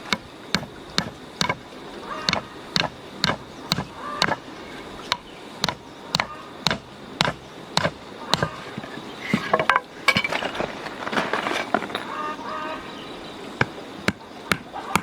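Steady chopping with a blade on a board, sharp strokes about two a second. The strokes pause briefly about ten seconds in while voices are heard faintly.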